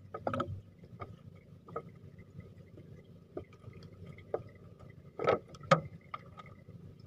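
Water lapping and sloshing against the hull of a small wooden outrigger boat, with scattered short slaps and knocks, the loudest about a third of a second in and twice about five seconds in.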